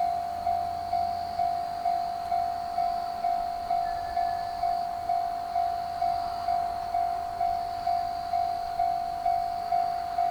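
Japanese level-crossing warning bell ringing its repeated electronic 'kan-kan' tone, about two strikes a second, each fading before the next: the crossing is closed for a passing train.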